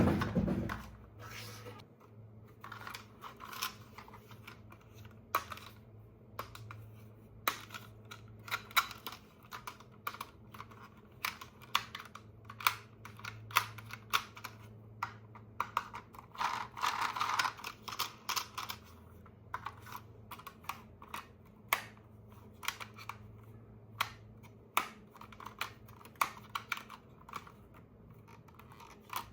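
Irregular small clicks and taps of hands handling plastic toy parts and packaging, with a brief rustle about two-thirds of the way in, over a faint steady low hum.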